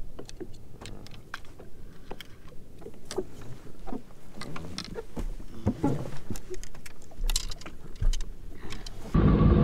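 Scattered light clicks, taps and knocks of a fishing rod, reel and line being handled on a jet ski. Near the end a loud, steady engine noise with a whine cuts in suddenly: the jet ski's engine running.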